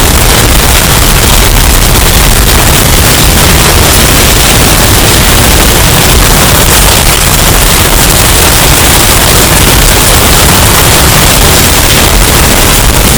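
Hurricane storm wind, a steady dense roar of noise with heavy low rumble. It is bass-boosted and very loud, distorted to the point of clipping.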